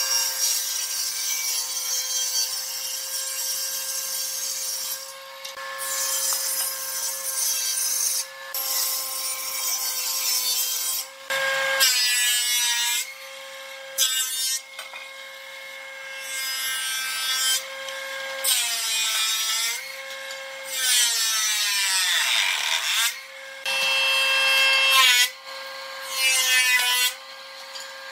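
Hitachi combination woodworking machine running with a steady hum while boards are fed through its planer cutters. There are repeated passes, each a second to a few seconds of loud cutting noise, with short lulls between them where only the machine hums.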